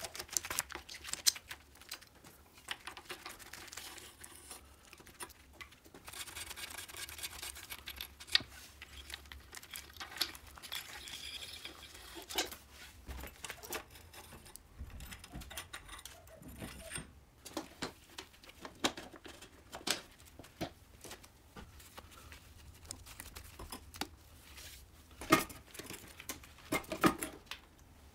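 Hand tools and small metal parts clicking, tapping and scraping as a moped's handlebar brake lever, throttle grip and cables are taken apart, with a longer stretch of rubbing about a third of the way in and a few louder clicks near the end.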